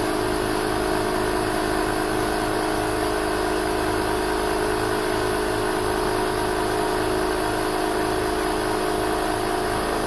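Portable tire inflator's small air compressor running steadily, pumping up a spare tire: an even mechanical drone that does not change.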